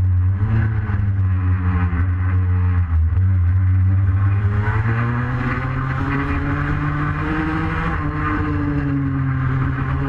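Two-stroke engine of a racing Vespa scooter heard onboard, running hard through the corners. Its pitch falls, dips briefly about three seconds in, climbs again around five seconds and eases off near eight as the rider works the throttle.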